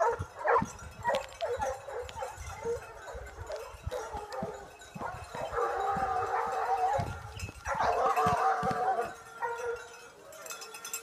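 Snoring: short, irregular squeaky breath sounds, then two longer pitched snores of about a second and a half each, about six and eight seconds in.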